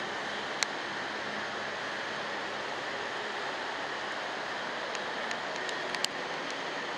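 Steady broadband hiss of room noise, with a few sharp clicks: one about half a second in and two near the end.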